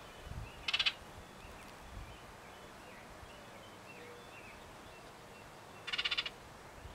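Baltimore oriole giving a short harsh rattling chatter twice, about five seconds apart, over faint scattered chirps of other birds.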